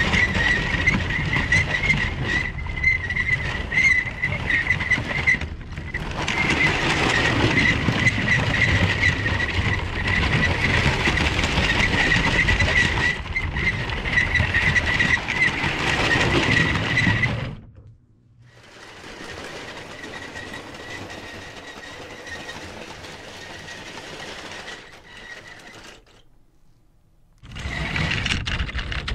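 Small electric toy-train motor whining steadily, with the wheels rattling on plastic track, heard up close from on board the LEGO train. About two-thirds of the way through it drops to a much quieter run, cuts out briefly, and is loud again near the end.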